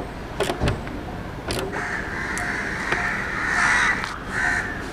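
Crows cawing repeatedly, loudest in the second half, over a few sharp metallic clicks from a hand tool on the motorcycle's small bracket bolts in the first seconds.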